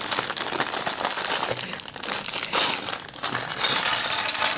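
Thin clear plastic bag of Lego pieces crinkling loudly as it is handled and rummaged in.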